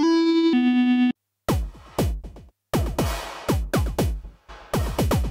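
Arturia Analog Lab V software synth playing two sustained bass-synth notes from the 'Buchla Pianoid' preset, the second lower, for about a second. After a brief gap the 'Buffer Repetae' drum preset starts an electronic drum pattern: deep hits whose pitch drops, with a noisy top, about two a second.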